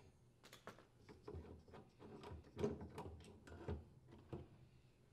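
Faint clicks and knocks of a Whirlpool top-load washer's drive motor being handled and pulled off its mounting on the gear case, with the sharpest knock about halfway through.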